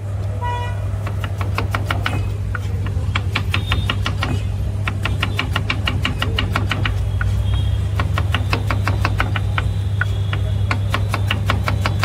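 Knife chopping onions fast on a chopping board: rapid runs of sharp knocks, several a second, with short pauses between runs. A steady low hum runs underneath.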